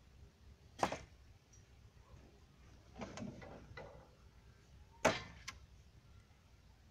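Cut branches knocking and clattering as they are dropped onto a pile of branches: a sharp wooden knock about a second in, a looser clatter around three seconds in, and another sharp knock with a smaller one just after it about five seconds in.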